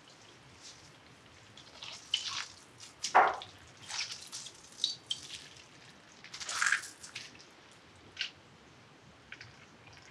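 Soaked gelatin sheets being lifted out of a glass of water and squeezed, with water dripping and splashing back into the glass in a series of short drips, the loudest about three seconds in.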